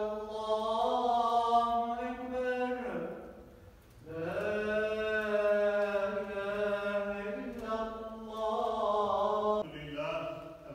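A single man's voice chanting Islamic liturgy in long, drawn-out phrases on a held, slightly wavering note. A phrase ends about three seconds in; after a short breath a longer one runs to nearly ten seconds; then a new phrase begins. This is the chanting of the Friday prayer service before the sermon.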